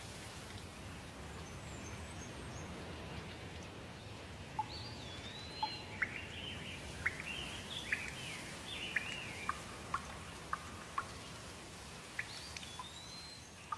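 Steady rain hiss with birds calling over it. From about four seconds in come repeated chirping, gliding calls and sharp drip-like ticks.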